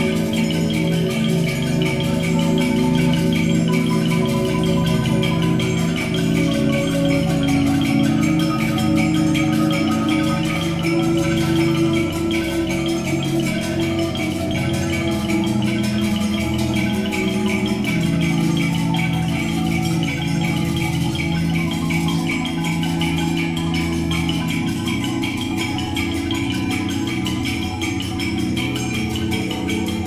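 Percussion ensemble led by marimbas and other mallet keyboards playing a constant stream of quick, overlapping notes over a common pulse, with sustained low notes shifting beneath every few seconds.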